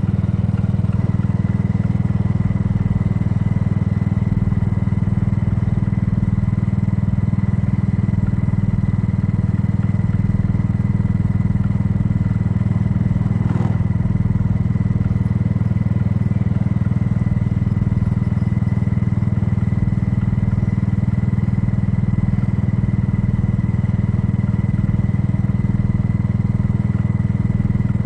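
Kymco People scooter's single-cylinder engine idling steadily while stopped, warmed up.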